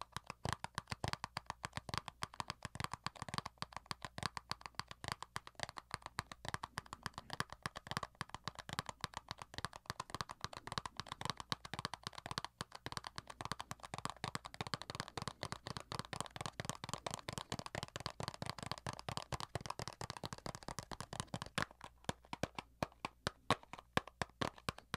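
Fingers tapping quickly on a small hard object held close to the microphone: a dense, even run of short taps.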